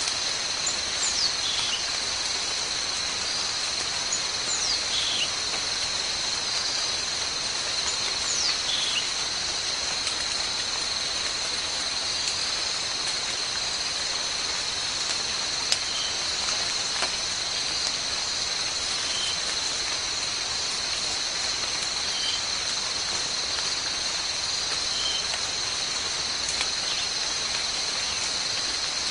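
Steady high-pitched drone of forest insects, with a bird giving three falling whistled calls in the first nine seconds and a few short chirps later. One sharp click about halfway through.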